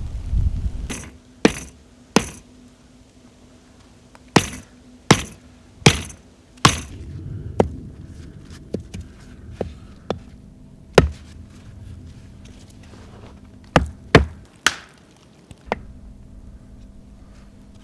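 A string of sharp, separate knocks: about sixteen, irregularly spaced, some in quick runs of two or three, over a faint steady hum.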